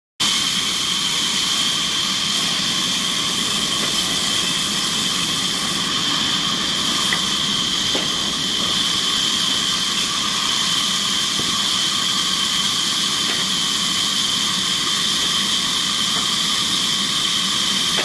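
Large band saw with big spoked wheels running and sawing lengthwise through a log, a steady high whine over a hissing rush of blade and wood.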